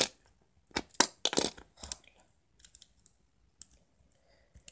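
Plastic Lego pieces clicking and clattering as they are handled and pressed together, a cluster of sharp clicks in the first two seconds, then a few faint ticks.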